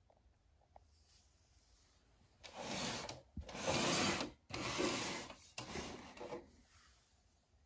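Rubbing and scraping as the case of a Sherwood AD-230B amplifier is handled and turned around on carpet by hand: four strokes in quick succession, each under a second long.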